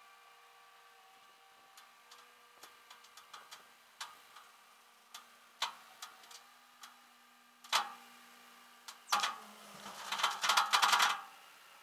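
Tie-down gear being hooked under the front of a pickup on a tow truck's flatbed: scattered metallic clicks and ticks that come more often, then a loud metallic clatter about nine seconds in that lasts about two seconds.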